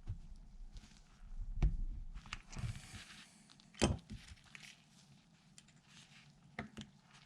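Small metal clicks, knocks and a brief scrape from handling a hydraulic lifter of a 5.3 V8 while working its gummed-up plunger loose from the lifter body. The two sharpest knocks come about one and a half and four seconds in.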